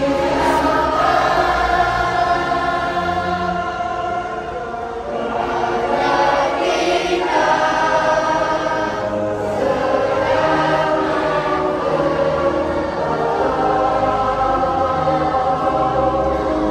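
A choir singing with instrumental backing, in long held notes over a steady bass line.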